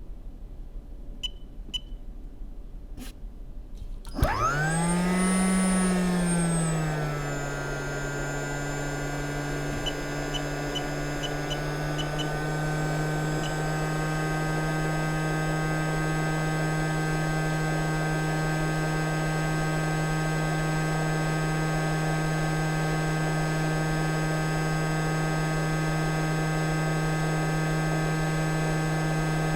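JBC hot air rework station's blower starting up about four seconds in, after a few clicks and a short beep. Its whine rises, dips and then settles into a steady pitch as it blows hot air to desolder a connector from a donor board.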